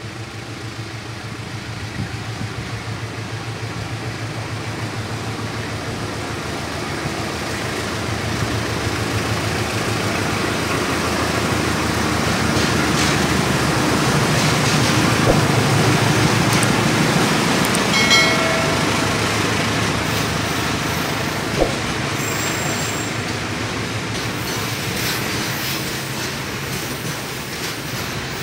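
Diesel locomotive hauling a container freight train passing close by. The engine drone grows louder to a peak about halfway through, then the wagons roll past with the clatter of wheels on the rails, a brief high squeal and a single sharp knock.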